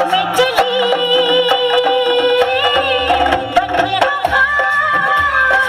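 Music: a melody of long held notes over a steady percussive beat.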